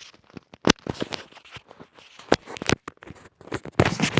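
A phone case being pulled off a phone right at the microphone: irregular sharp clicks and short scrapes of the case working free.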